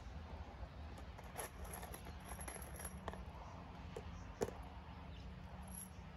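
Scattered small clicks and rattles of screws being picked out of a plastic tub, with one sharper click about four and a half seconds in. Faint high chirps sound between about one and a half and three seconds in.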